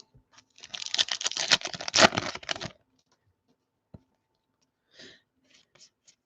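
Trading cards and their pack being handled: a dense run of clicks and crinkles lasting about two seconds, then a few faint ticks.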